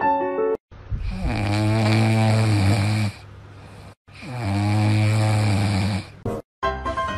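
French bulldog puppy snoring in its sleep: two long, deep snores of about two seconds each, with a short pause between.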